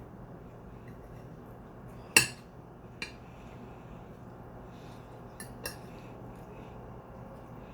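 Cutlery clinking against a plate while eating, four sharp clinks with the loudest about two seconds in, over a low steady hum.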